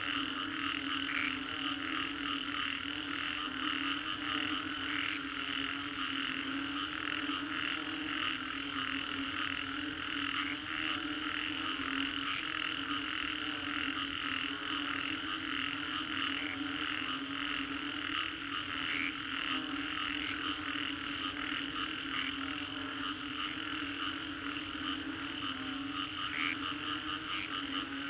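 Dense chorus of many frogs calling after a storm, steady and unbroken: a low layer of calls under a higher layer of rapid, overlapping calls.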